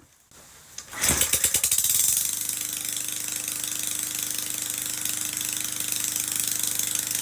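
Muffler-less Briggs & Stratton single-cylinder engine on a push mower starting about a second in, flaring up briefly, then settling into steady running with a rapid, very noisy bark from the open exhaust port.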